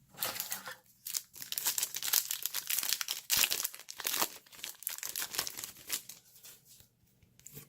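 A 2017 Donruss Elite football card pack's wrapper being torn open and crinkled in the hands: a dense, crackling rustle that dies away near the end.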